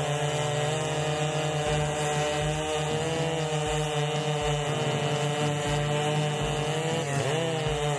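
Large chainsaws running at high revs while cutting logs, their pitch wavering under load and dipping sharply, then recovering, about seven seconds in.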